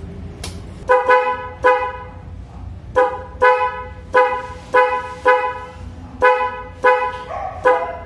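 Aftermarket dual loud horn on a motor scooter sounded in about a dozen short toots, some in quick pairs, each a steady blaring tone. Each toot is the horn button being tapped, which also flashes the wired-in driving light.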